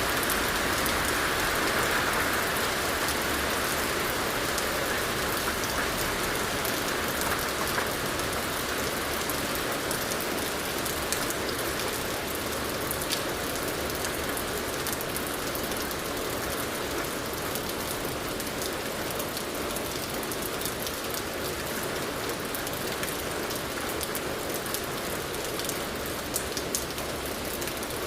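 Steady gentle rain falling on a surface, with a continuous hiss and scattered individual drops ticking through it; slightly heavier in the first few seconds, then easing a little.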